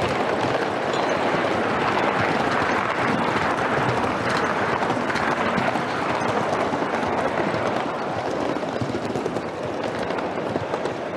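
Gauge 1 live-steam model locomotive running along its track, heard close up from its tender: a steady, dense rush of hiss and rapid clicking, easing slightly near the end.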